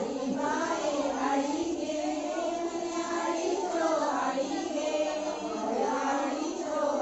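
A group of women singing a Dhalo folk song together in chorus, phrase after phrase at a steady level.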